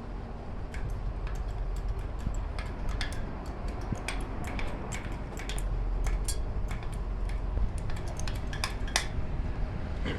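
Irregular light metallic clinks and ticks, many in quick succession, over a steady low rumble.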